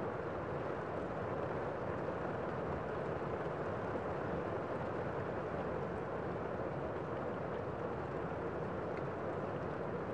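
Steady, even city street noise with no single sound standing out.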